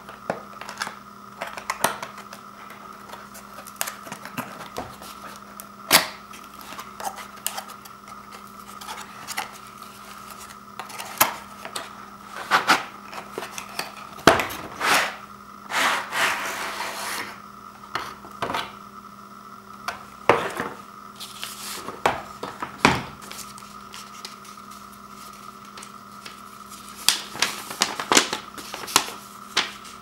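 Cardboard retail box being opened and handled: scattered taps, clicks and scrapes of cardboard and plastic, with a longer sliding scrape about halfway through as the power strip is pulled out of the box, and paper rustling near the end as the instruction sheet is unfolded. A faint steady hum sits underneath.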